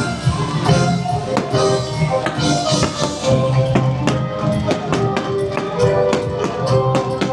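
Upbeat instrumental show music with percussion and a steady beat, played loud over the ship's deck speakers.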